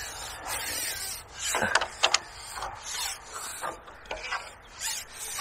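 Rubbing and rustling handling noises, a run of short scrapes, from a carbon fishing pole being held and worked while a hooked fish is played on it.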